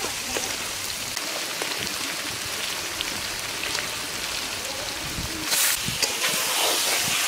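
Spiced onion-and-chilli paste frying in oil in a large pan, with a steady crackling sizzle. About five and a half seconds in the sizzle turns briefly louder, then stays a little stronger as whole climbing perch go into the hot oil.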